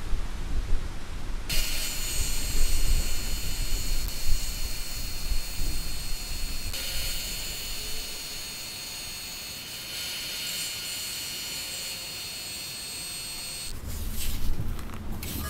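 Bench disc sander grinding a wooden lure blank against its spinning abrasive disc: a steady hiss with faint high whining tones. It starts about a second and a half in and gives way to a low rumble and a few clicks shortly before the end.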